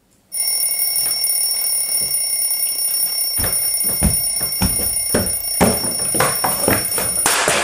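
Alarm going off beside a sleeper: a steady high electronic tone that starts about a third of a second in and cuts off just before the end, where a short burst of noise replaces it. Bedding rustles and soft thuds sound under it as the person stirs beneath the comforter.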